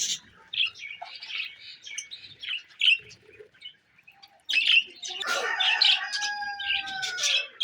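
Pet birds chirping and chattering in short, high calls, growing busier about halfway through, when one bird gives a long held call of about two seconds that drops a little at its end.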